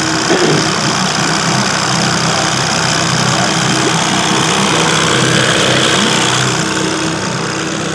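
Boat's outboard motor running steadily at trolling speed, a constant low hum with a few steady tones over a broad rushing noise.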